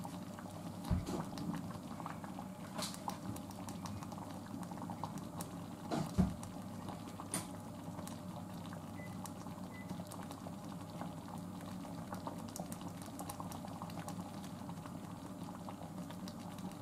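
Thick hayashi-rice sauce simmering in a pot on an induction hob, bubbling and popping steadily. Two soft knocks come about a second in and about six seconds in.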